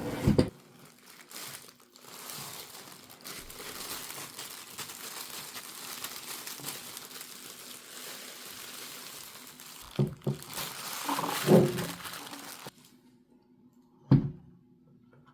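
Packaging being handled and crinkled during an unboxing, a long stretch of rustling that stops suddenly near the end. A few knocks come near the start and later on, the loudest about three-quarters of the way through.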